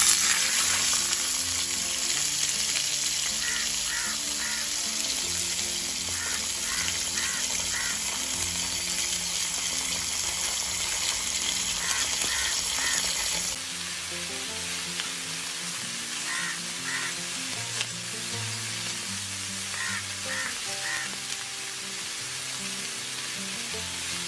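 Fish-roe cutlets deep-frying in hot oil in a wok (kadai). The sizzling starts suddenly and loudly as they go into the oil, then runs steadily, a little quieter from about halfway.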